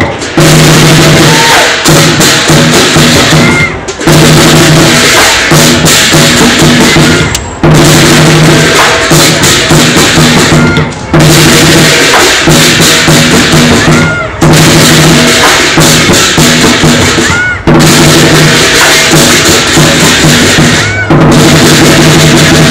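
Lion dance percussion: a Chinese lion drum pounding with gongs and cymbals, loud and dense. The pattern repeats in phrases about every three and a half seconds, each broken by a short pause.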